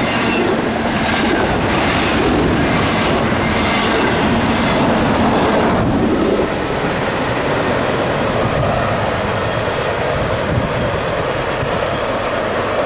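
Intermodal freight train of double-stack well cars rolling past, its wheels clicking over the rail joints in a repeating clickety-clack. About six seconds in the clacking stops and a steadier, duller rumble follows.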